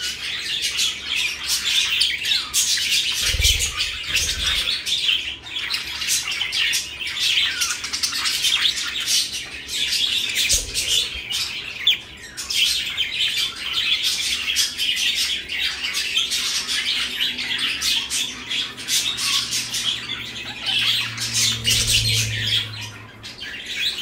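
Several pet budgerigars chirping and chattering without a break in quick, high twitters, with a few dull low thumps.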